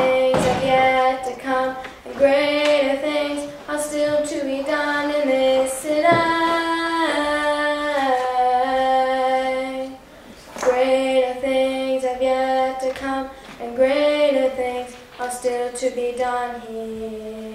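A girl singing solo and unaccompanied into a microphone: sung phrases with long held notes, a short break about halfway through, ending on a long held note.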